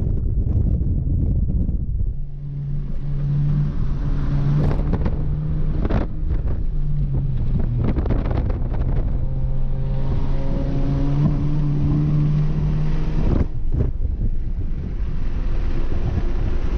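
Cabin sound of a 2014 Honda Civic LX's 1.8-litre R18 four-cylinder at track speed: wind and road rush, with the engine's steady note standing out through the slower middle stretch and fading back under the rush near the end as the car speeds up again. A few short knocks come through along the way.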